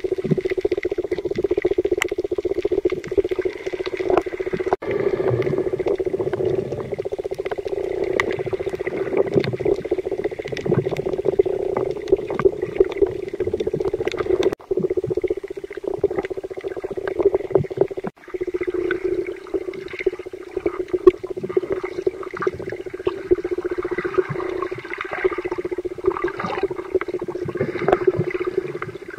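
Underwater sound of shallow, rough sea picked up by a camera's microphone: a steady hum under water movement and a scatter of crackling clicks. It drops out briefly three times.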